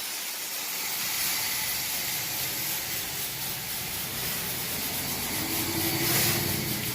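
Steady hiss of water sprayed from a garden hose nozzle onto an AC condenser coil, rinsing the cleaner out of the fins. About five seconds in, a faint low hum joins briefly.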